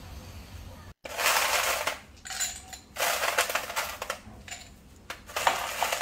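A low steady rumble stops abruptly about a second in. Glassware and dishes then clink and rattle in several short bursts, with brief ringing notes.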